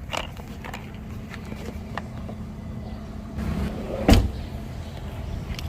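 A few light clicks, then a single heavy thump about four seconds in, like a car door shutting, over a steady low hum.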